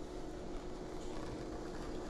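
Low, steady background hum with no distinct sounds: room tone.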